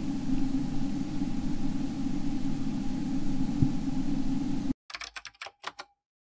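Steady low rumbling background noise with a faint hum, cutting off abruptly about three-quarters of the way in; a short run of clicks follows, then silence.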